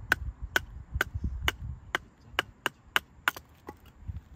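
Wood being chopped: about ten sharp strikes, roughly two a second, that stop a little before the end.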